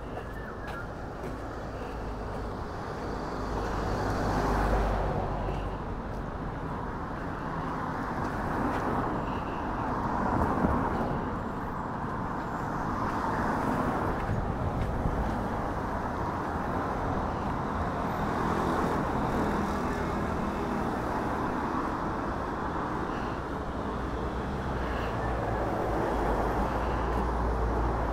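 Road traffic, a steady wash of car engine and tyre noise with a low rumble, rising and falling as vehicles pass.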